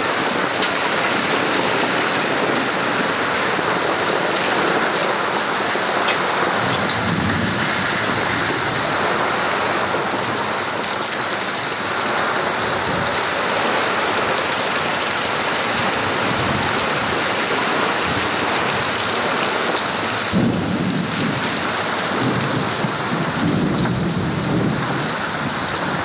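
Heavy rain mixed with hail pelting the ground and surfaces in a steady dense hiss. Low rumbling swells come about seven seconds in and again from about twenty seconds in.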